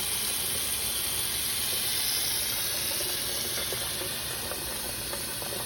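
Steady hiss of running water, with a few faint clicks near the end.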